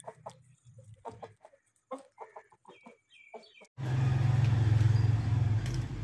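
Aseel chickens clucking in short separate calls, a few of them higher and bending in pitch. About four seconds in, a much louder steady low hum with a hiss over it starts abruptly.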